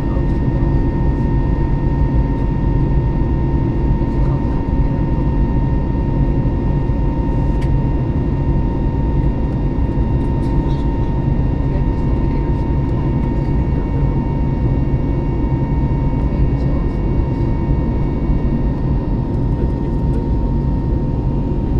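Steady cabin noise of an Airbus A321neo LR in flight, heard from inside the cabin: a low rumble of engines and airflow with a steady high whine, unchanging throughout.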